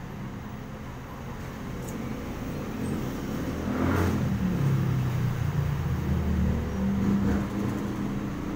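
Street traffic with small motorcycle engines passing close by. The sound grows louder to a peak about halfway through, and a steady engine note carries on until near the end.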